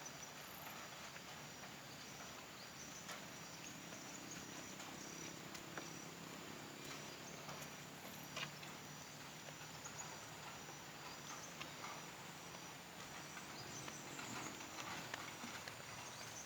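Faint outdoor ambience: a steady soft hiss with a high-pitched chirp repeating about twice a second, and scattered light ticks and taps.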